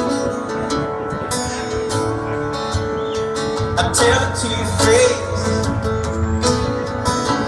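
Live acoustic band music, led by a strummed acoustic guitar.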